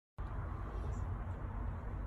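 A brief moment of dead silence, then a steady low rumbling background noise starts abruptly and carries on evenly.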